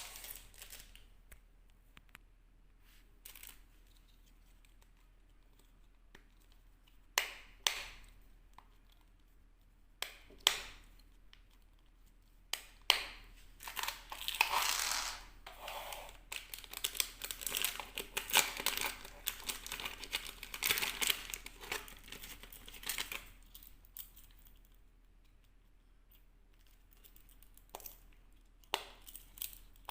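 Packaging being opened by hand: a few sharp clicks and snaps, then about ten seconds of dense crinkling and tearing, then a couple more clicks near the end.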